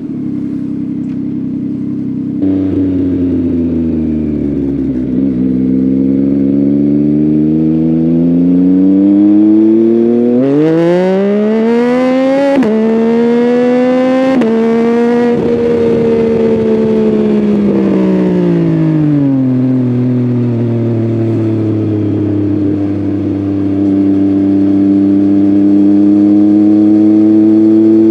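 Yamaha MT-09's inline-three engine through an Akrapovic full exhaust system, heard from the rider's seat. The revs climb, drop sharply at two quick upshifts about halfway through, then fall away as the throttle eases. After that the engine settles into a steady cruise.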